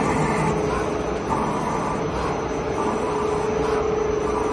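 CNC lathe running: a steady machine hum at one pitch over a bed of mechanical noise, the hum growing stronger about three seconds in.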